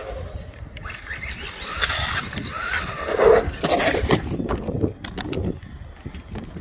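Brushless electric motor of a Maverick Quantum MT Flux RC monster truck whining up and down in pitch as it is driven off on a 3S battery, with a louder noisy stretch about halfway through.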